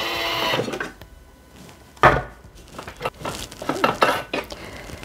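Thermomix TM6 being opened and its steel mixing bowl handled. A short sound in the first second gives way to a solid knock about two seconds in as the lid comes off and is set down. Light clicks and clatter follow as the bowl is worked free of the base.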